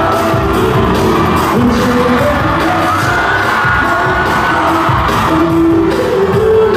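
Live K-pop song played loud over a concert sound system, with a steady heavy beat and singing, heard from among the audience.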